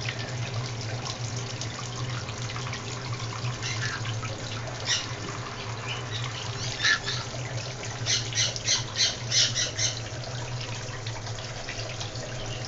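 Tap water running steadily into a bathtub, with short high squawks from pet conures being bathed: single calls about four to seven seconds in, then a quick run of about ten between eight and ten seconds in.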